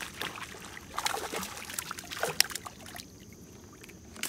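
A hooked perch splashing at the water surface, a run of quick splashes about one to three seconds in, then a single knock at the very end.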